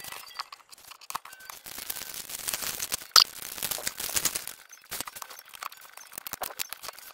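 Paper rustling as discbound notebook sheets are handled, with many small clicks and clinks from metal binding discs. A short high squeak about three seconds in.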